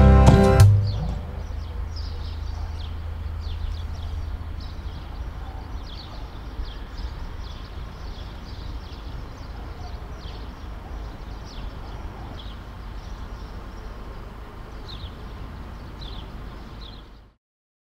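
A piece of music ends about a second in, leaving outdoor evening ambience: a steady low rumble with many short, high, falling bird chirps scattered through it. Everything cuts off abruptly near the end.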